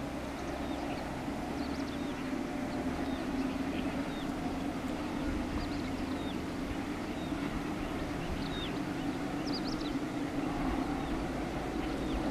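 Distant WDG-3A diesel-electric locomotive's ALCO V16 engine droning steadily as it hauls a train through the ghat section, growing slightly louder near the end.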